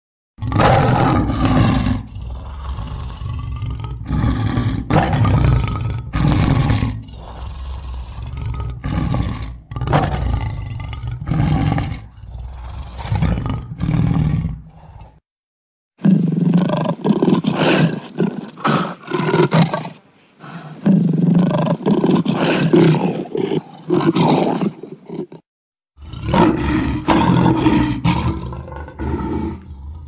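Lion roaring: long series of loud, deep roars, in three stretches cut apart by brief silences about fifteen seconds in and again about twenty-five seconds in.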